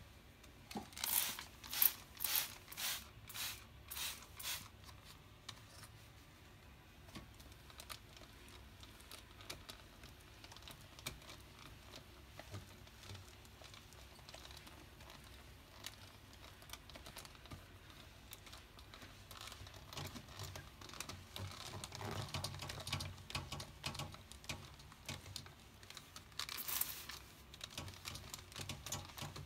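Trigger spray bottle sprayed in a quick run of about seven short hisses, roughly two a second, onto a glass mirror, then a cloth rubbing and wiping the wet glass with soft crinkling. Near the end the bottle sprays again.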